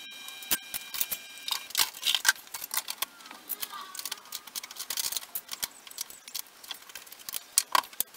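Irregular small metallic clicks, taps and rattles of tools and clamps being handled against car body panels at a wheel arch, busiest about two seconds and five seconds in. A faint steady high whine of several tones runs through the first second and a half or so.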